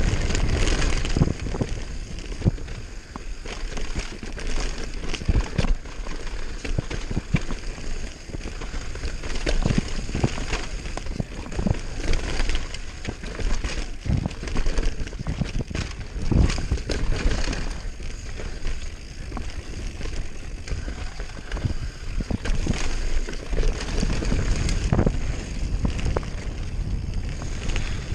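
Giant Glory downhill mountain bike riding fast over dirt and rock: a steady rumble of knobby tyres under many sharp knocks and clatters as the bike hits rocks and bumps, with wind buffeting the microphone.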